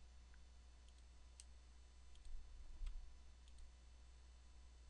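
Near silence with a few faint computer clicks from a mouse and keyboard, over a steady low hum.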